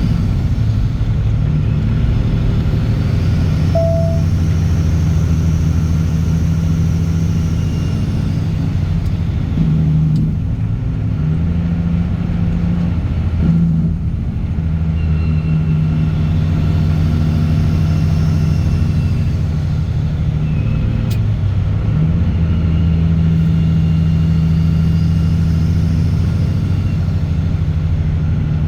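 Straight-piped Caterpillar C15 ACERT diesel truck engine running steadily under way, a loud low drone with a few brief changes in its note partway through.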